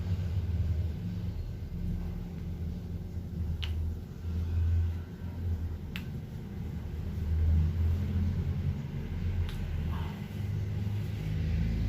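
Low motor hum that swells and fades every few seconds, with a few faint clicks.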